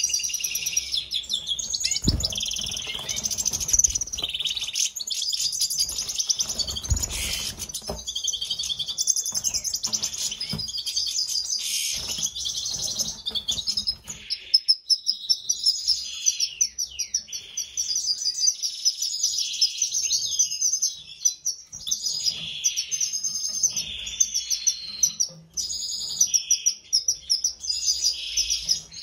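European goldfinches twittering and singing: a fast, continuous run of chirps, buzzy notes and trills, with a couple of soft thumps in the first seven seconds.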